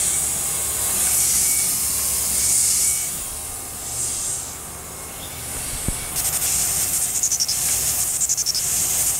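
Tormach PCNC 1100 end mill cutting a 0.5-inch slot in a steel soft jaw at 2100 RPM, a steady high hiss. It eases off somewhat in the middle, a single click comes about six seconds in, and then the cut goes on as a fast, rhythmic rasp.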